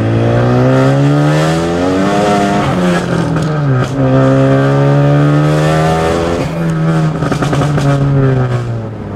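Turbocharged Ford Focus ST's 2.0-litre four-cylinder engine under hard acceleration, heard from inside the cabin. The note climbs in pitch and drops back at each upshift, several times over.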